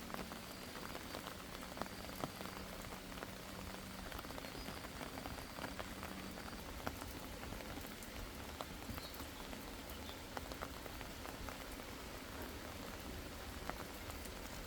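Steady rain falling, with many separate drops ticking sharply through it.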